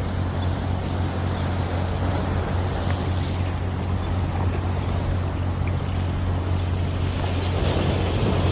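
A steady low engine hum that holds one pitch throughout, under continuous wind and water noise.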